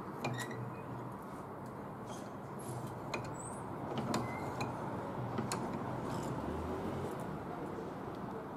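Scattered light clicks and taps of pliers handling a steel knife blade, over a steady low background noise.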